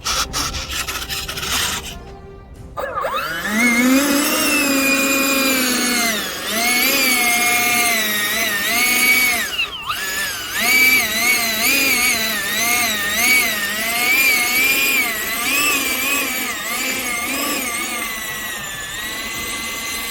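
90 mm electric ducted fan on a Freewing F-22 Raptor RC jet whining as it spools up about three seconds in, then rising and falling in pitch with the throttle before settling to a steady whine near the end.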